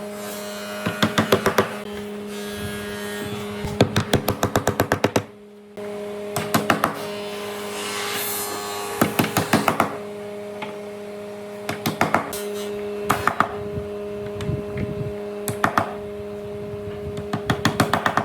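Repeated bursts of quick knocking, several sharp strikes at a time, over a steady hum.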